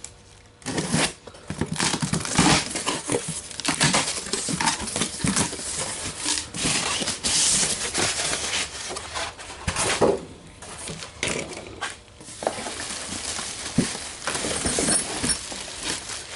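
Cardboard box and packing material being opened and handled: irregular rustling, crinkling and tearing with scattered knocks as a new small engine is unpacked.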